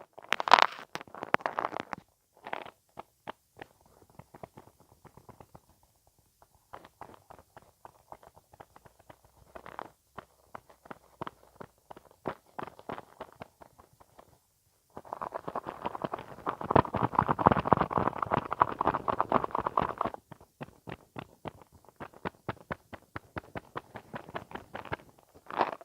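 Close-miked ASMR mouth sounds: wet clicks and smacks of the lips and tongue in irregular flurries, thickening into a louder, dense run of wet crackling about fifteen seconds in that stops abruptly some five seconds later.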